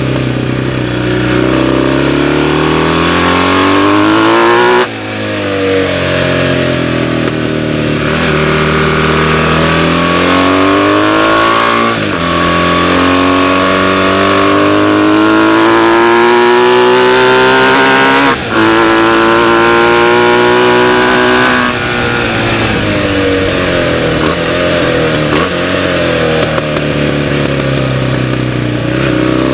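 Vintage BMW flat-twin racing motorcycle engine under hard acceleration, its pitch climbing through the gears with brief cuts at the upshifts about 5, 12 and 18 seconds in, then falling as it slows for a corner. Wind rushes over the onboard microphone throughout.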